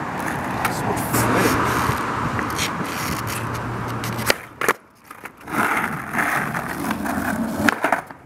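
Skateboard rolling on asphalt, its wheels making a steady gritty rumble. A sharp clack of the board comes about four seconds in, and more clacks come near the end.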